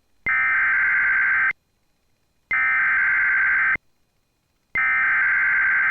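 NOAA Weather Radio EAS SAME header tones: three identical bursts of harsh digital data screech, each about a second and a quarter long with about a second of silence between them. The three-times-repeated header marks the start of an emergency alert, here a severe thunderstorm warning.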